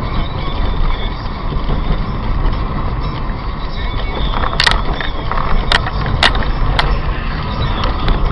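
Steady vehicle noise, road and engine rumble, with four short sharp knocks in the second half.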